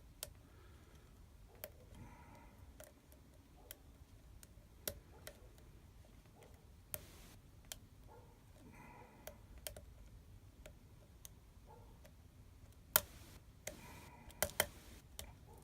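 Light, scattered metallic clicks and faint scraping from a hook pick and tension wrench working the pin stack of a Union oval lock cylinder, with a couple of sharper clicks near the end as pins set.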